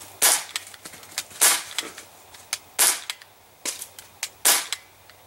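Crosman C11 CO2-powered semi-automatic BB pistol firing four shots, each a sharp pop with a short hiss of gas, about a second and a half apart. Fainter clicks fall between the shots.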